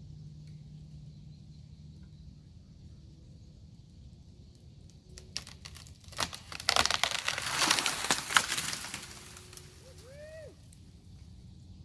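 A large willow branch cracking as it breaks off, then crashing down through leaves and twigs for about three seconds, over a steady low hum. A brief chirp comes near the end.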